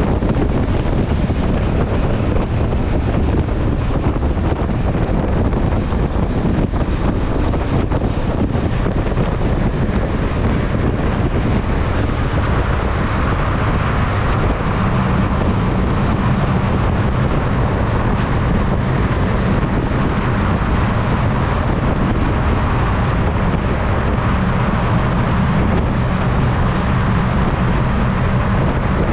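Motorcycle riding at highway speed: wind buffeting the microphone over steady engine and road noise. About twelve seconds in, as the bike enters a road tunnel, the sound changes and a steady engine hum comes through more clearly.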